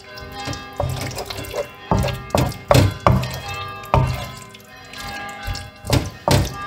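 Background music with held notes, over the wet squelching and knocking of a spatula stirring and tossing thick pasta in tomato sauce in a frying pan, in irregular strokes.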